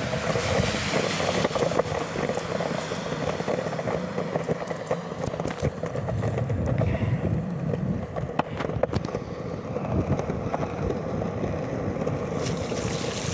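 Longboard wheels rolling steadily over damp concrete sidewalk, a continuous rumble broken by short clacks, likely as the wheels cross the slab joints.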